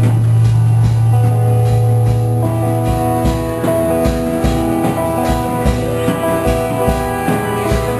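Live band playing an instrumental passage on electric guitar, drum kit and keyboard, with held notes over a low sustained bass tone; a steady drum beat comes forward about three seconds in.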